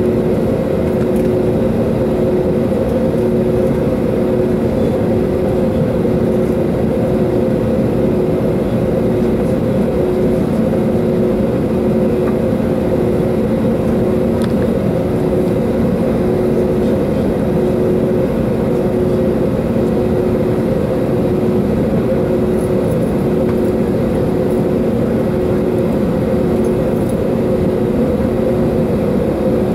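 Steady droning cabin noise inside an Airbus A320neo on the ground, with a low steady hum and a faintly pulsing tone running under it.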